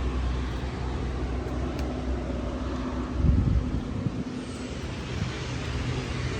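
Steady low rumble of a vehicle's engine and road noise, swelling briefly about three seconds in.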